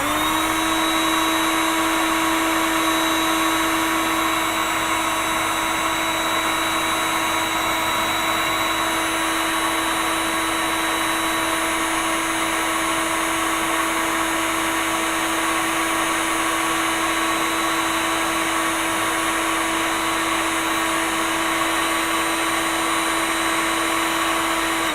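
Hot air gun running steadily: an even fan whine over a rush of blowing air, switched on at the start and winding down with a falling pitch at the very end. It is blowing hot air onto a plastic model tank to soften and melt it.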